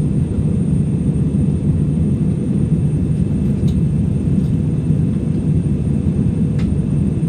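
Steady low cabin rumble of a jet airliner in flight, the engines and airflow heard from a passenger seat during the climb after take-off. A couple of faint clicks sound over it.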